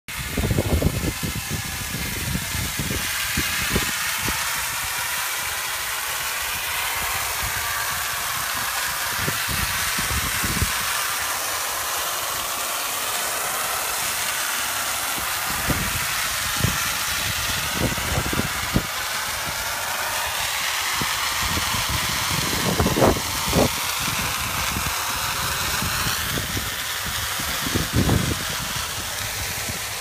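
Garden hose spraying water onto an air-conditioner filter: a steady hiss whose tone wavers as the spray shifts, with occasional low thumps.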